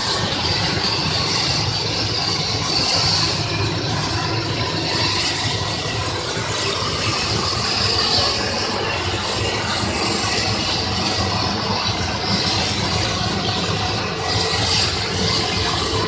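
13-die aluminium rod breakdown wire drawing machine running, its drive and capstans giving a steady mechanical drone. Over the drone a high hiss rises and falls every few seconds.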